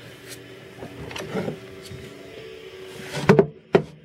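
Handling noise at a snake enclosure: soft rustling, then two sharp knocks about three seconds in, over a faint steady hum.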